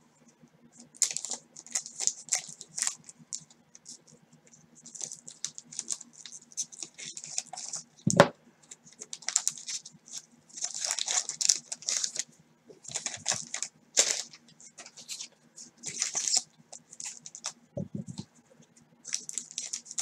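1989 Score football cards being flicked and slid one by one off a stack in hand, in quick runs of crisp cardboard rustling and clicking, with the pack's wax wrapper crinkling; the cards come apart freely, none stuck together. Two dull knocks, about eight seconds in and about two seconds before the end.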